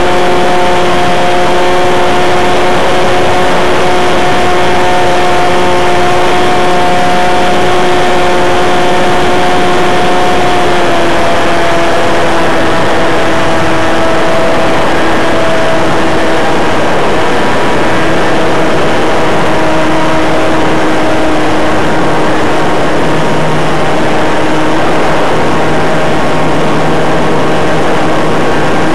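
Model airplane's O.S. .40 glow engine running in flight, heard close up through a small camera mounted on the airframe, a steady buzz over rushing noise. Its pitch drops slightly about eleven seconds in and wavers a little later.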